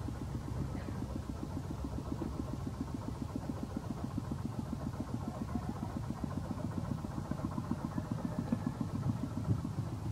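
A small engine idling steadily with an even, rapid pulse.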